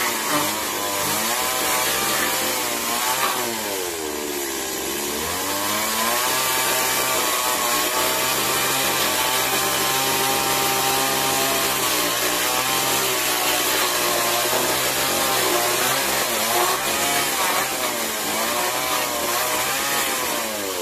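Small chainsaw running while cutting into a wooden board. Its pitch sags and recovers as it takes the load, with a deep dip a few seconds in and again near the end, and runs steadier in between.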